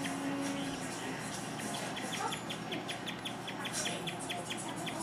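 Guinea pig chirping: a long run of short, high, bird-like chirps repeated evenly at about four to five a second.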